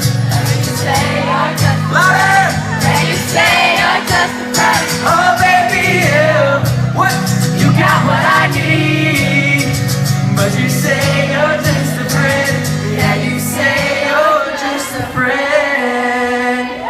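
Live pop song: male singing over a backing track with a steady bass line and beat, played loud.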